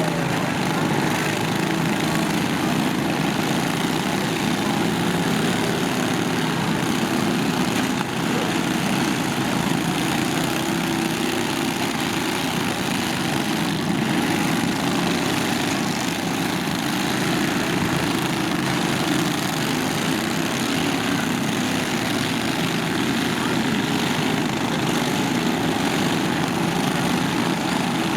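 Several small lawn-tractor engines running together in a steady, dense din, with no clear breaks.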